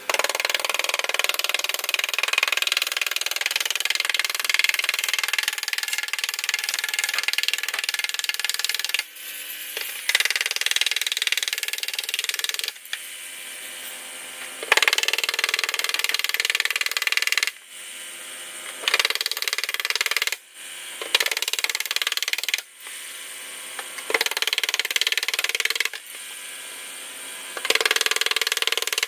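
A power tool running in spells of a few seconds, starting and stopping abruptly, with short quieter gaps between.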